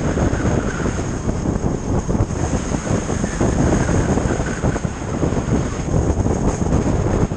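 Wind buffeting the camera's microphone on a touring motorcycle at road speed: a loud, steady, gusting rumble, with a thin steady high whine above it.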